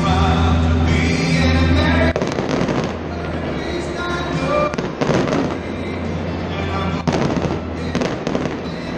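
Aerial fireworks bursting, with sharp bangs over music; the loudest bangs come about five and seven seconds in.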